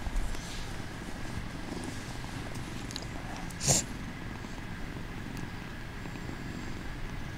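Bengal kitten purring steadily, a low continuous rumble, with a brief rustle about halfway through.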